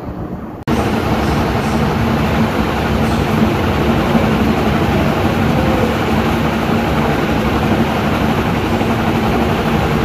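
Ceiling fan running: a steady rush of air with a low, even motor hum. Less than a second in, a quieter fan gives way suddenly to a louder one.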